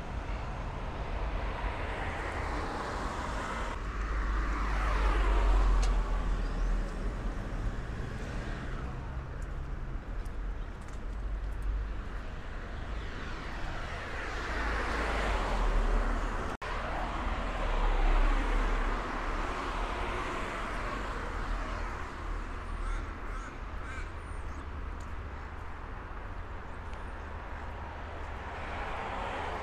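Street traffic: several cars passing one after another, each swelling up and fading away, the loudest about five seconds in and again around a quarter-minute in, over a steady low rumble.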